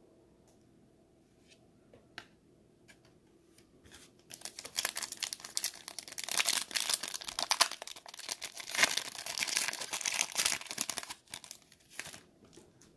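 Foil trading-card pack wrapper being torn open and crinkled, with a few light clicks first, then about seven seconds of continuous crinkling and tearing.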